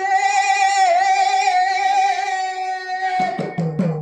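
Banjara devotional bhajan singing amplified through a PA: one long high note held with a slightly wavering pitch. About three seconds in, lower notes and repeated percussion strokes come in.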